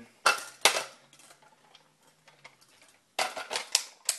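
Plastic clicks and rattles of a Nerf Alpha Trooper CS-12 blaster being handled: two sharp clicks near the start, then a quick run of clicks and rattles about three seconds in as the pump slide and clip are worked. The slide has to be pulled back before the clip will seat.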